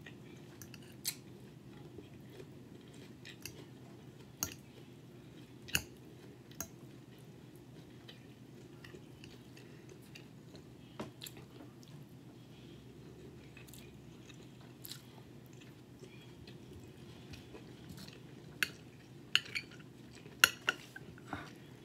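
Someone chewing a bacon, egg and cheese omelette, with scattered sharp clicks of a metal fork against the plate, several louder clicks close together near the end. A low steady hum underneath.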